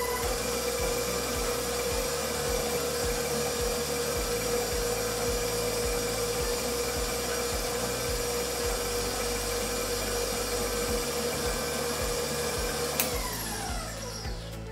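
Electric stand mixer running steadily as it creams butter and brown sugar: a constant motor whine. About 13 seconds in it clicks off and the motor's pitch slides down as it winds to a stop.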